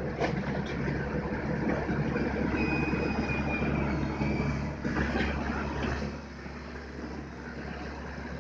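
Komatsu mini excavator's diesel engine running under load as it swings and works its hydraulics, with a brief high squeal around the middle and a knock about five seconds in; the engine goes quieter about six seconds in.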